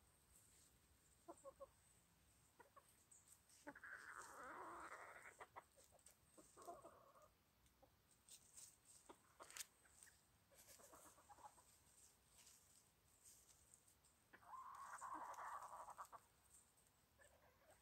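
Bantam chickens clucking faintly, with two longer calls about four seconds in and near the end, and a few short sharp clicks in between.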